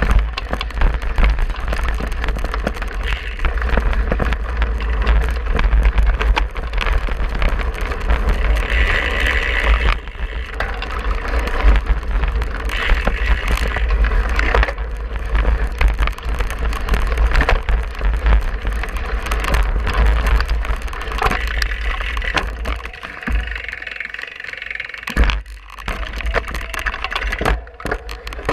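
Cyclocross bike ridden over bumpy grass and dirt: steady wind rumble on the mounted camera's microphone, with tyres and a rattling frame and drivetrain over rough ground. It quiets near the end as the bike slows.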